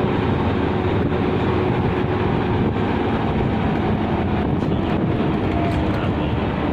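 Steady engine and road noise of a moving vehicle, heard from inside it.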